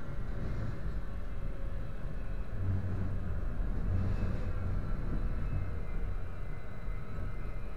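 Tram running along the street, heard from inside the passenger car: a steady low rumble of wheels and running gear that swells briefly midway, with faint high whining tones above it.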